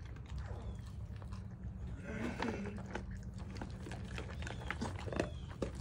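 Great Pyrenees eating dry kibble: irregular sharp crunches and clicks as its teeth break the pellets, over a steady low hum.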